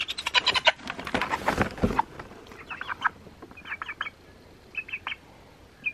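A Freedom Ranger meat chicken gives short clucks in several little clusters while sitting in a wooden basket on a scale. Before the clucks come a burst of rustling and a thump in the first two seconds.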